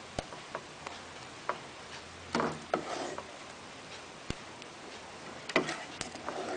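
A metal ladle scooping candil balls in thickened palm-sugar sauce from the pot and tipping them into a serving bowl: scattered light clinks and knocks, with louder clatters about two and a half and five and a half seconds in.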